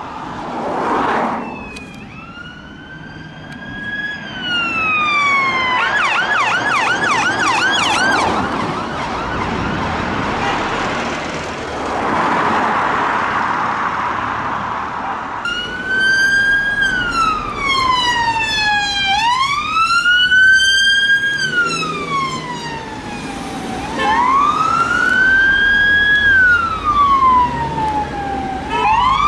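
UK police car sirens sounding over road traffic. The siren runs a slow wail that rises and falls, switches to a fast yelp for a couple of seconds, then goes back to the wail.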